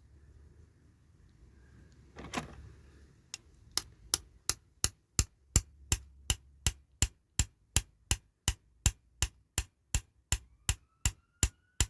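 A small hammer tapping a spare wheel into a diecast toy car: one knock, then a long run of sharp, evenly spaced taps, about three a second.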